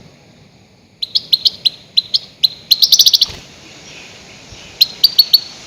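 Goldfinch giving loud, sharp call notes: a run of separate calls from about a second in, a quick rattling burst of them at about three seconds, then after a pause a short group of four near the end.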